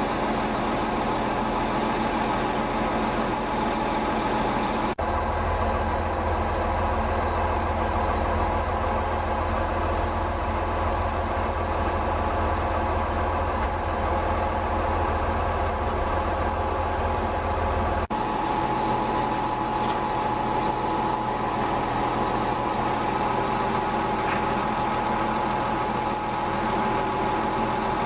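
Bulldozer diesel engine running steadily. Its note changes abruptly twice, with a heavy low hum from about five seconds in until about eighteen seconds.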